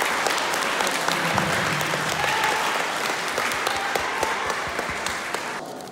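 A room of people applauding, with dense clapping and a few voices mixed in. The applause dies away near the end.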